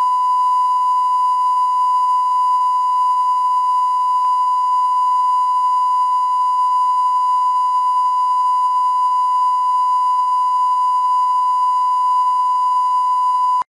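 1 kHz line-up test tone accompanying SMPTE colour bars, the reference tone for setting audio levels: one loud, unbroken beep at a single pitch that cuts off suddenly at the end.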